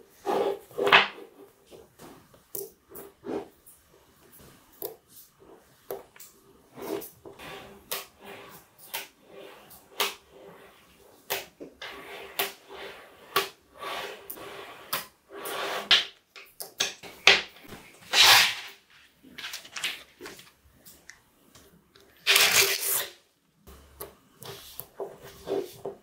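Small magnetic balls clicking and clattering as sheets of them are handled, folded and snapped together. The sound comes as irregular sharp clicks, with a few longer rattling runs.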